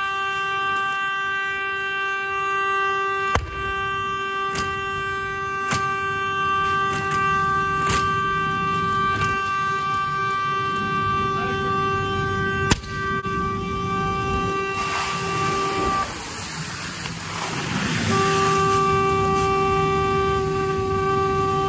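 Chevy Sonic's car horn, stuck on in the burning car, sounding one steady unbroken note, with a couple of sharp pops from the fire. Near the end the horn drops out for about two seconds under a rush of hissing as hose water hits the flames and raises steam, then it comes back.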